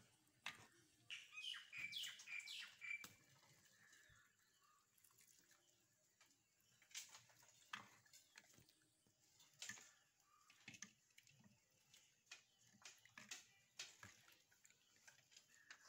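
Faint bird chirps, a quick flurry from about one to three seconds in, over near silence broken by scattered faint taps.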